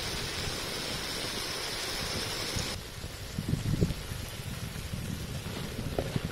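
Stir-fry of squid and green peppercorns sizzling and bubbling in a steel wok, a steady hiss that drops abruptly about three seconds in to a quieter simmer with a few low bumps.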